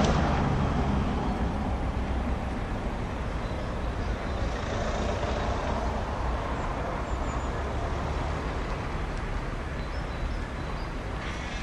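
LNER K4 three-cylinder 2-6-0 steam locomotive working a freight train away, heard as a steady noise that fades slightly as it goes.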